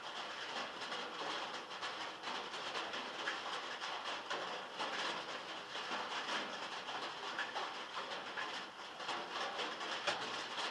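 Heavy rain drumming on a metal roof, a dense steady patter of countless small drops.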